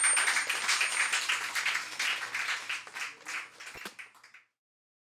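A small audience clapping, the claps thinning out and fading away about four seconds in.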